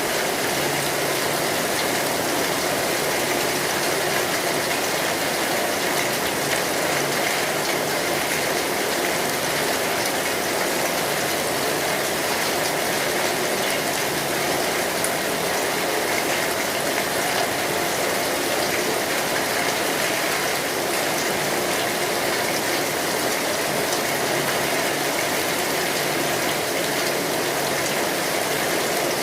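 Steady rain on a metal roof: an even, unbroken hiss of many small drop impacts on the sheet metal.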